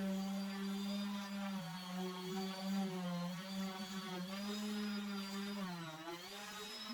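Electric power tool motor running steadily with a strong hum, its pitch sagging briefly under load near the end and then recovering.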